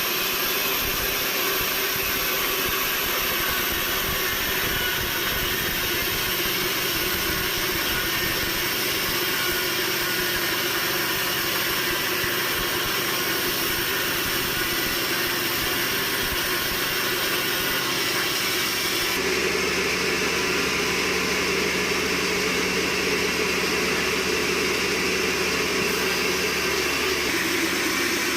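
Sawmill machinery running steadily, a constant mechanical din; about two-thirds of the way through the sound shifts and a lower hum joins it.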